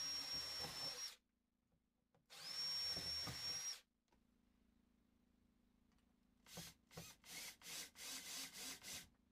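Ridgid cordless drill running in two short runs of about a second each, its motor whine rising as the trigger is pulled, boring pilot holes into an RV's thin interior wall to mount a solar charge controller. Several short bursts of noise follow near the end.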